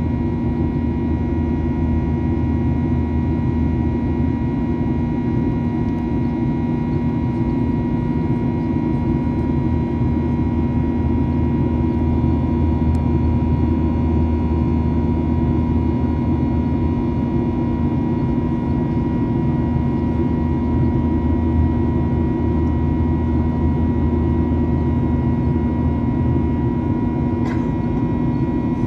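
Steady cabin drone of a Boeing 737-900ER climbing after takeoff, its CFM56-7B turbofans running at climb power, heard from inside the cabin as a constant hum and rumble. A single click comes near the end.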